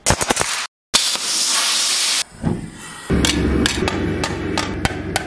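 A few quick clanks, then about a second of loud hissing that cuts off abruptly. After that comes a hand hammer striking a red-hot steel disc on the anvil, about three blows a second, over a low steady rumble.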